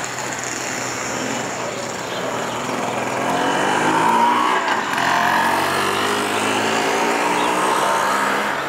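A car driving past close by: its engine grows louder to a peak about four seconds in, and its pitch drops as it goes by.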